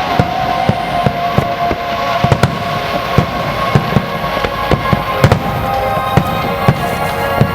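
Large aerial fireworks bursting, many sharp bangs in quick, irregular succession, over music with long held notes.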